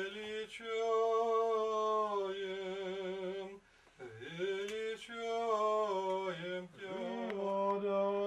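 Unaccompanied Orthodox church chant: long held sung notes with short breaks for breath between phrases.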